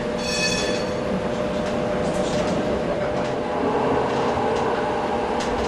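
Sheffield Supertram light-rail vehicle running on its track, heard from inside the driver's cab: a steady running noise with a constant motor hum and occasional clicks. A brief high-pitched tone sounds about a quarter of a second in.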